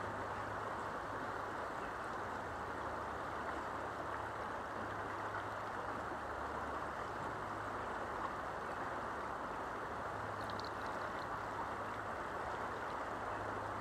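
Steady rush of shallow creek water flowing, with a faint low hum underneath.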